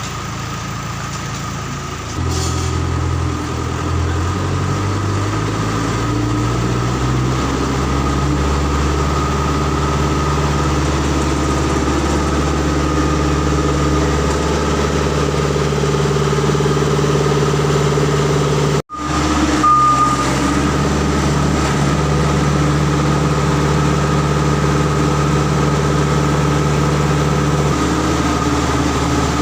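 Diesel engine of a small construction machine running steadily, picking up speed about two seconds in, with a steady whine above the engine note. The sound cuts out for an instant about two-thirds of the way through.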